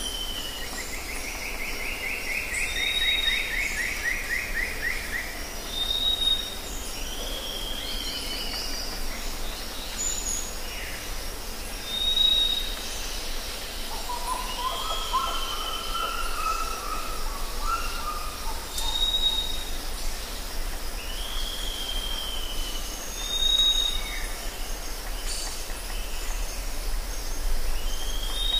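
Forest birds calling: repeated short high whistles and down-slurred notes, a fast trill a couple of seconds in, and a lower warbling phrase about halfway through. Beneath them run a steady high hiss and a low rumble.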